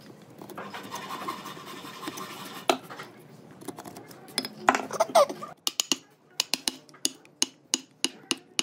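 Hand wood chisel cutting a mortise in a hardwood slab: scraping and paring in the wood, with a loud scrape near the middle, then a run of sharp taps about two or three a second as the chisel chops down into the slot.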